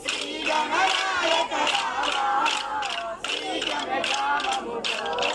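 Many voices singing a folk song together in a group, with sharp clacks of kolatam dance sticks struck in a steady rhythm.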